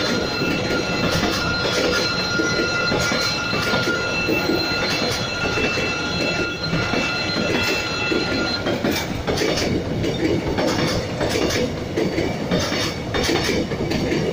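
Passenger train coaches rolling past at a level crossing, a steady loud rumble of wheels on rail with clattering over the rail joints. A steady high-pitched tone runs with it and stops about nine seconds in, after which the clacks of the wheels stand out more.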